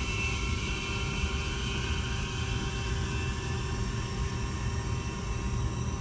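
Steady rushing noise with a low rumble as R-410A refrigerant flows from the cylinder through the charging hose into the air conditioner's line set, the charge slowly going in by weight.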